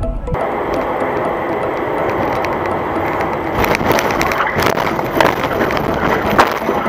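A car's road and cabin noise picked up by a dashcam, steady at first, then from about halfway a run of sharp knocks and cracks, the loudest near the end, as the car swerves toward the roadside.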